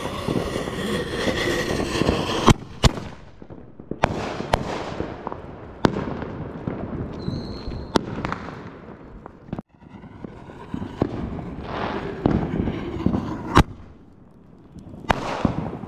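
Fireworks going off: a string of sharp bangs, irregularly spaced a second or several apart, with crackling and hissing between them.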